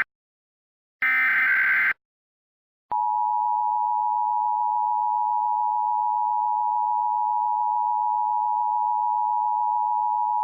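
Emergency Alert System SAME header, a data burst of about a second heard as a harsh digital screech. About a second later the EAS two-tone attention signal (853 and 960 Hz together) begins and holds steady, announcing the start of a new alert.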